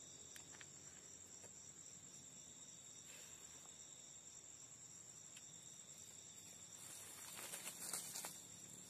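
Steady night chorus of crickets, several high trilling tones holding on without a break. About seven seconds in, a brief rustle with a few clicks rises over it.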